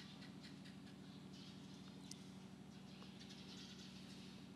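Near silence: a faint steady electrical hum with a few faint, short high chirps scattered through it.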